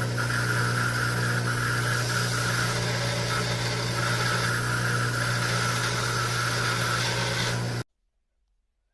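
Electric power-tool motor running steadily with a strong even hum. It cuts off abruptly near the end.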